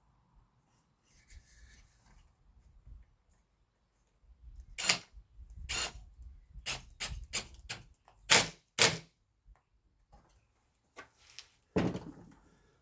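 A quick run of sharp knocks and clatters, about ten in four seconds, then one more knock near the end: hard parts being handled and set down on a workbench.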